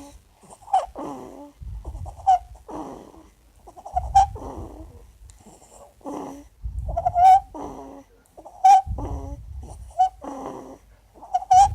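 Noisy breathing in sleep with stridor, about five breaths. Each is a rough, snore-like rattle and a short, high-pitched squeaky crowing note, the sign of a narrowed upper airway.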